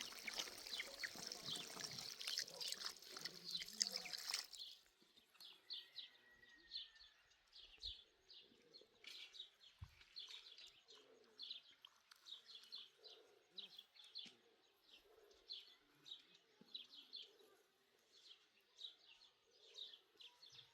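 Running or pouring water hisses loudly for the first few seconds, then stops abruptly. After that, small birds chirp again and again in short high notes over faint outdoor quiet.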